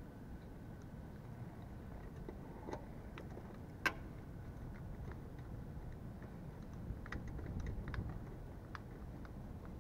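Scattered clicks and taps from hands taking apart a motorcycle headlight to reach the bulb, with one sharp click about four seconds in and a run of light clicks near the end, over a low background rumble.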